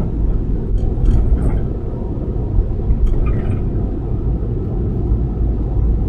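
Steady low road-and-engine rumble inside a moving car's cabin, with a few faint light sounds about a second in and around three seconds.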